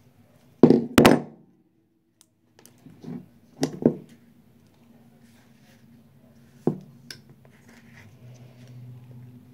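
Zip-tie tails being snipped off with cutters and the plastic parts handled: a few sharp clacks, two close together about a second in, two more near four seconds and lighter ones near seven seconds.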